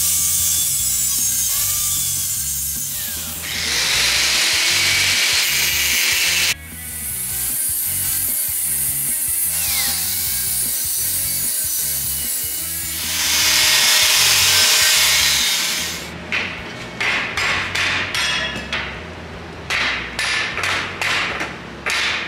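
Angle grinder cutting, a loud hissing grind that swells louder as the wheel bites in. In the last several seconds it breaks into a quick run of short bursts, about two a second.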